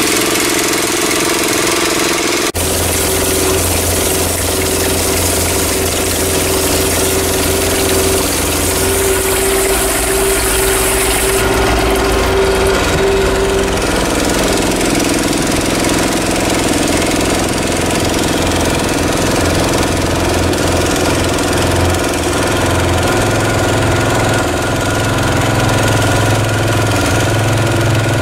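An engine running steadily, driving the pump that loads water and chemical into a crop sprayer's tank, with a change in tone about a third of the way in.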